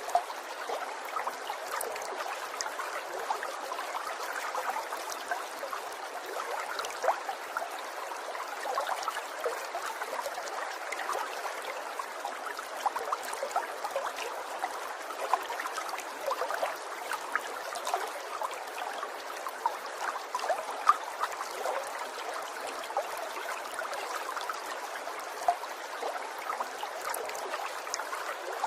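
Water trickling steadily, with many small splashes and drips scattered through a constant babble.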